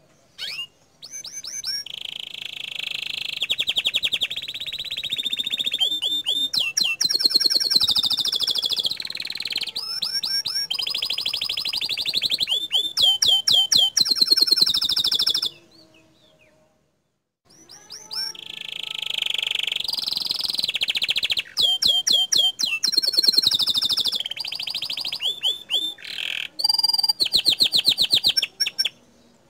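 Domestic canary singing long runs of rapid, piercing trills and repeated rolling phrases, the fast 'tembakan' bursts used in masteran recordings to provoke other canaries. The song breaks off for about two seconds a little past halfway, then resumes.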